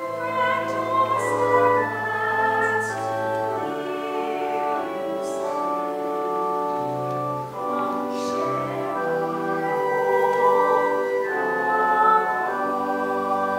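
Church organ accompanying a congregation singing a hymn, with sustained chords and a low bass pedal note.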